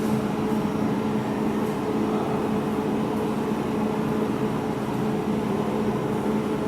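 Jewelry laser welding machine running with its water pump on, filling the cooling system with purified water: a steady, even hum.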